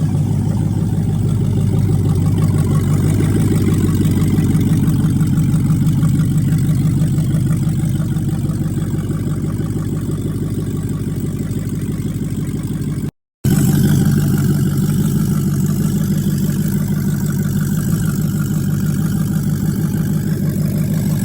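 Swapped-in 6.4-litre HEMI V8 in a Jeep Grand Cherokee, running steadily at idle just after starting up, with a brief cut about two thirds through.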